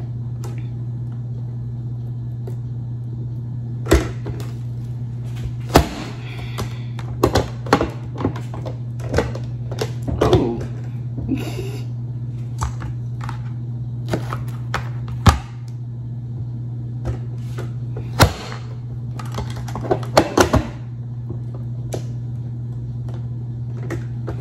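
Knife chopping mango against a cutting surface: scattered sharp knocks, sometimes two or three in quick succession, over a steady low hum.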